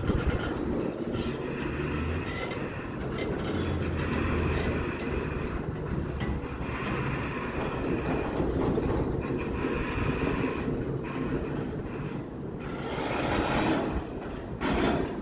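Freight train cars rolling past on the rails: a steady rumble of wheels on track with a thin, steady high wheel squeal over it.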